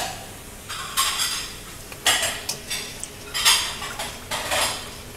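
Wire whisk scraping and swishing against a stainless steel bowl, beating raw tahini together with corn oil to thin it, in strokes roughly once a second.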